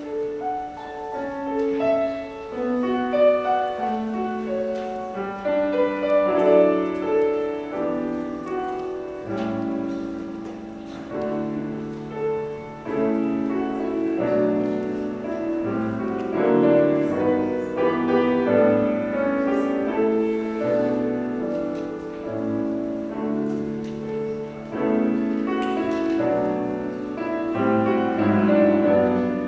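Piano music: a melody over chords, note after note without a break.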